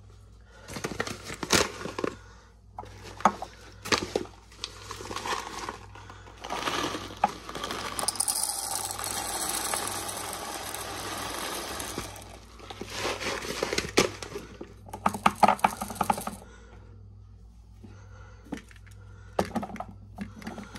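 Coarse pink rock salt crystals poured from a plastic bag into a clear plastic grinder chamber: a dense, steady rattle lasting several seconds in the middle, with crinkling of the plastic bag and scattered clicks of crystals and plastic before and after.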